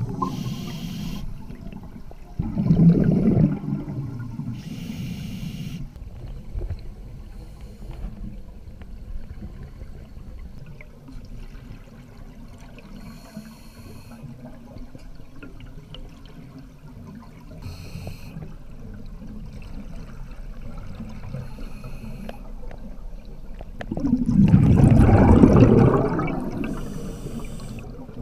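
Scuba diver breathing through a regulator underwater: short hisses of inhalation through the demand valve, and bubbling rushes of exhaled air, loudest about three seconds in and again near the end, over a low steady rumble of water.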